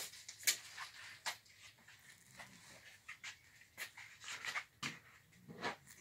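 A dog panting, with scattered light clicks and knocks.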